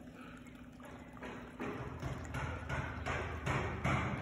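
Footsteps on rough ground, about two or three a second, starting about a second in and growing louder toward the end, over a steady low hum.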